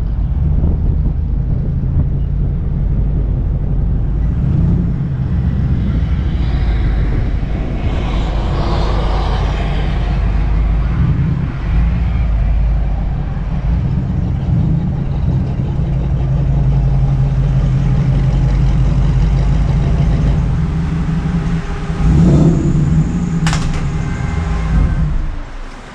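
A car driving at highway speed: a steady engine and road rumble, with a swell of higher noise about nine seconds in and a sharp click near the end.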